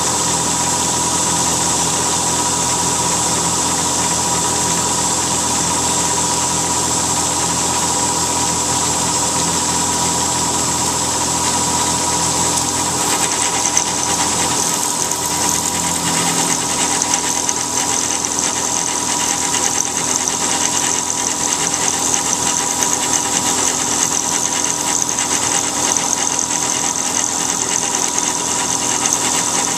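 CNC milling machine cutting aluminium: the spindle and end mill run with a steady high-pitched whine and the rough noise of the cut. About halfway through, the low hum drops away and a slightly different high whine comes in.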